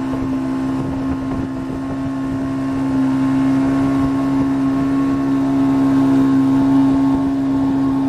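Motorboat engine running at a steady pitch with a constant hum, over a rushing noise of water and wind. It grows a little louder about three seconds in.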